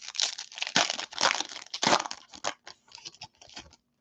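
Foil wrapper of a 2021 Bowman baseball card pack crinkling and tearing as it is pulled open by hand, in a run of irregular crackles that thin out and stop shortly before the end.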